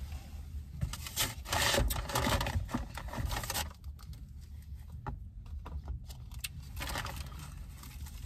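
Rustling and scraping of food wrappers and drink cups being handled, loudest in the first few seconds, then quieter with a few light clicks.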